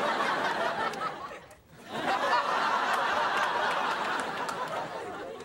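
Sitcom laugh track: a crowd of audience laughter that dies away about a second and a half in, then swells again and slowly fades.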